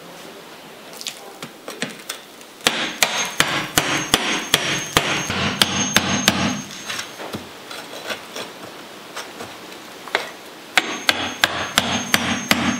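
Claw hammer striking a steel chisel that cuts into a dried clay-and-straw mud wall. A few light taps, then a quick run of blows, a lull with scattered taps, and another run of blows near the end.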